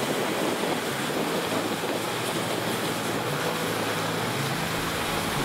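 Steady rushing noise of a dog sled gliding over snow behind its team, with wind on the microphone.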